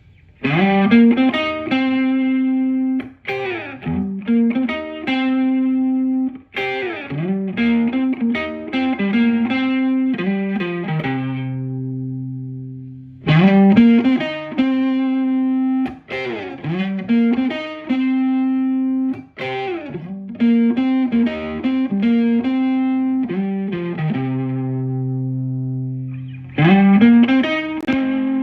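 Fender Stratocaster electric guitar played through a Maxon Vintage Overdrive Pro, a Tube Screamer-style overdrive pedal, giving it a light drive. The same lick is played twice, each time ending on a held low note, and a third time begins near the end.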